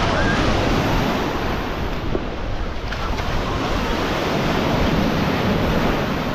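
Baltic Sea surf washing steadily onto the beach, with wind rumbling on the microphone.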